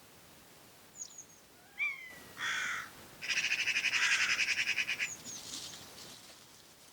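Wild birds calling: a few short falling notes, then a harsh call and a loud, rapid chattering series lasting about two seconds that fades away.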